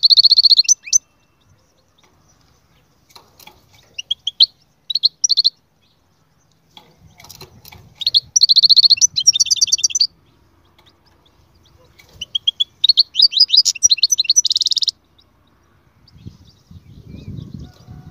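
European goldfinch singing: four bursts of rapid, high-pitched twittering a few seconds apart. A low rumble comes in near the end.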